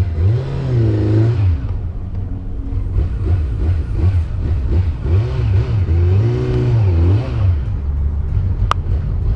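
Kawasaki Z900's inline-four engine being revved through its exhaust, over and over: a long rev up and back down, a run of quick throttle blips, then another long rev. A sharp click comes near the end.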